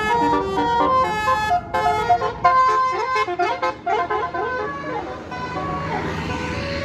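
Bus telolet horn, a Basuri-type multi-tone air horn, playing a fast melody of short notes. About three seconds in the notes bend in pitch, and the horn gives way to a steady rush of vehicle noise.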